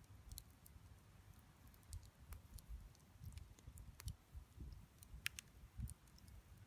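Wood campfire crackling faintly: sparse small pops and snaps of burning wood, a few sharper ones, over a faint low rumble.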